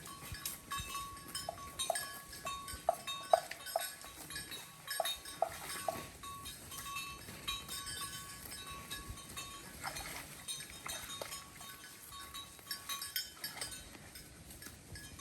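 Bells on grazing cows clinking irregularly, with a run of quick clinks in the first six seconds, over a steady high-pitched ringing background.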